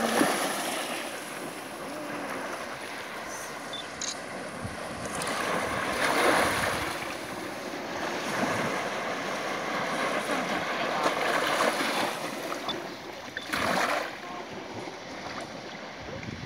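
Small surf washing up a sand beach: a steady rushing hiss that swells louder about six seconds in and again briefly near the end.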